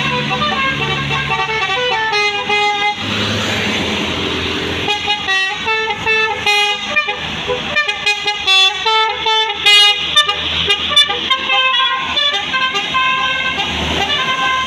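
12-note telolet basuri horn on a tour bus playing a tune: pitched horn notes stepping up and down, slower at first and then in a quick run of short notes. A brief hiss comes about three seconds in.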